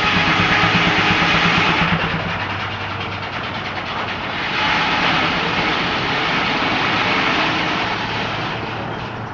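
Steam-engine-driven sawmill running: a steady machine noise with a broad rushing sound that eases a couple of seconds in, swells again from about four and a half to eight seconds, then tapers off.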